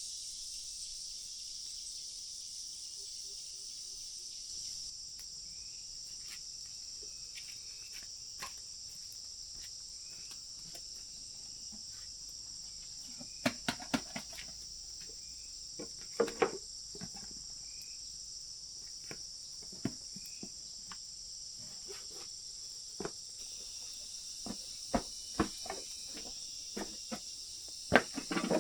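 A steady high-pitched chorus of insects such as crickets or cicadas, broken by a few sharp knocks: a pair about halfway through and a cluster near the end.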